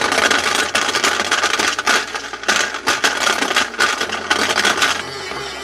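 Toy blender running, its motor tumbling toy fruit pieces that rattle and clatter loudly against the plastic jar; the rattling stops about five seconds in.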